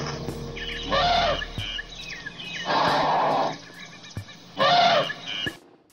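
Elephant calling: three short, loud trumpet-like calls about two seconds apart, each arching up and down in pitch, with faint chirps between them.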